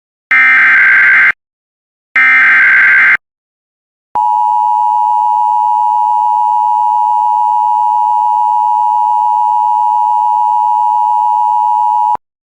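Emergency Alert System header: two one-second bursts of SAME digital header data. After a short gap, the steady two-tone EAS attention signal holds for about eight seconds and then cuts off sharply. Together they announce an EAS alert, here a severe thunderstorm warning.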